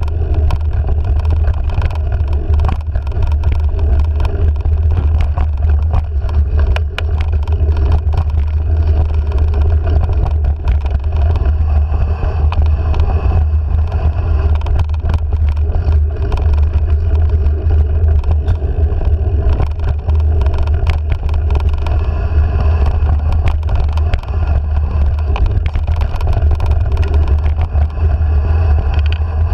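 Steady low wind rumble buffeting a handlebar-mounted action camera on a mountain bike riding dirt singletrack, with frequent small clicks and rattles from the bike over the trail.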